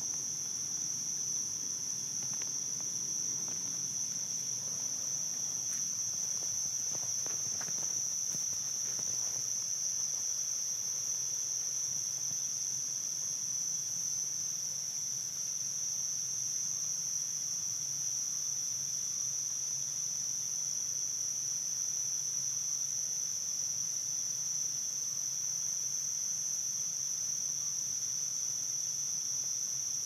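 Crickets chirping in a steady, unbroken high-pitched chorus, with a faint low rumble underneath.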